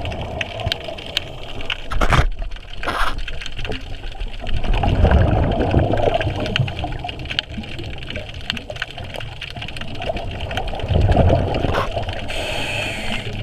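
Scuba regulator breathing heard underwater: exhaled bubbles rumble and gurgle twice, and a hiss of inhaled air comes near the end. Two sharp knocks come in the first few seconds.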